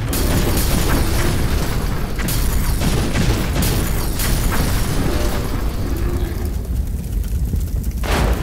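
Film-style explosion sound effects: a loud blast right at the start, a continuous low rumble, several more booms a few seconds in, and another sharp blast near the end.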